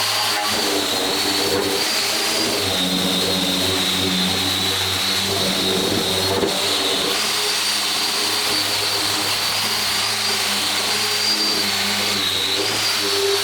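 Handheld electric power tool running continuously, its high motor whine dipping briefly in pitch about three seconds in and again near the end as it is pressed into the work, abrading the old saw's surface smooth.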